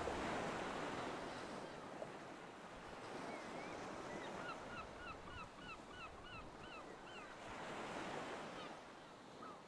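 Faint ocean waves and wind, with a bird giving a quick run of about ten short rise-and-fall calls in the middle, and one or two more near the end.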